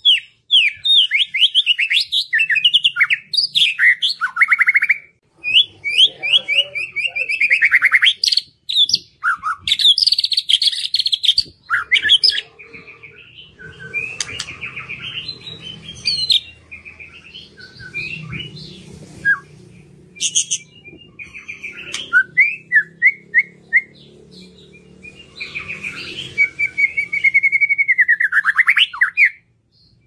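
White-rumped shama singing a long, varied song: quick whistled phrases and fast trills that sweep up and down, broken by short pauses between phrases.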